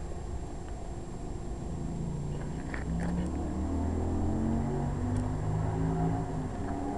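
An engine running nearby, growing louder about two to three seconds in, its pitch shifting up and down in steps, over a steady low rumble.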